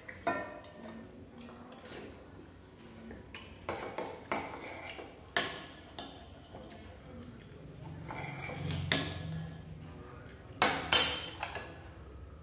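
A metal spoon clinking and scraping against a stainless steel pot and ceramic bowls as soup is served over rice: a string of irregular sharp clinks, the loudest about five seconds in and near the end.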